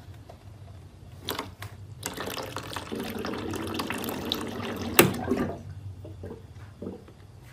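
Water running from a water dispenser's tap for a few seconds as a cat works the tap with its paws, with plastic clicks and a sharp knock about five seconds in.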